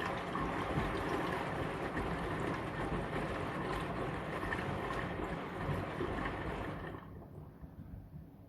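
Brandt washing machine drum turning with the water and laundry sloshing inside during a wash tumble, stopping about seven seconds in.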